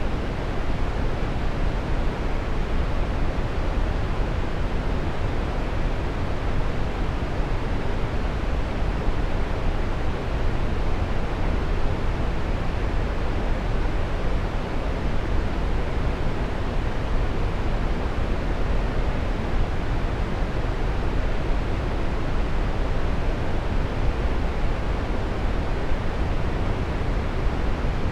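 A waterfall rushing steadily: continuous, even water noise, deepest in the low end, with no breaks or changes.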